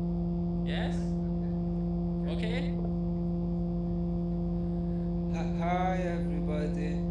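A low, steady hum on one held pitch with overtones, unchanging throughout. A few short vocal sounds come over it, and a voice speaks or chants from about five and a half seconds in.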